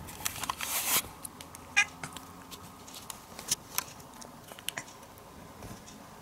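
Domestic cat crying in short meows, the loudest and sharpest about two seconds in, with light clicks scattered through.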